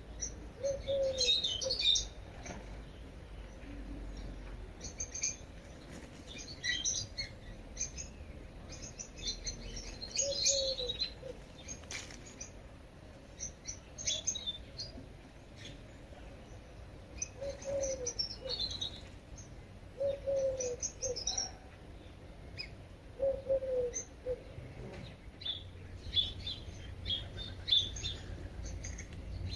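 Small birds chirping and twittering in short bursts, with a short low falling call that recurs every few seconds.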